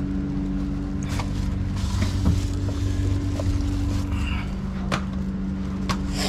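A steady low machine hum runs underneath, with scattered sharp clicks and knocks and a brief rustle about two seconds in, as household garbage is gathered up by hand.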